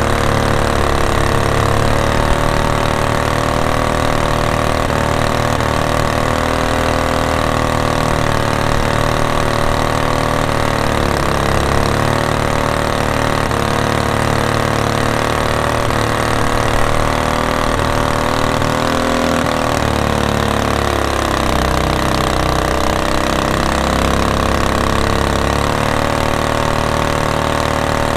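Predator 212 single-cylinder four-stroke engine on a surface-drive mud motor, upgraded with a go-kart kit, running at speed and pushing a small jon boat. The engine note is steady, sagging briefly in pitch about two-thirds of the way through and then picking back up.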